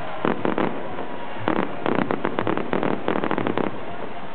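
Fireworks bursting overhead: groups of sharp pops and bangs, with a fast run of them from about two to almost four seconds in.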